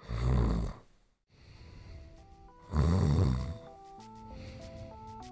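Loud snoring, two snores about three seconds apart, over a simple tune of single held notes that starts about two seconds in.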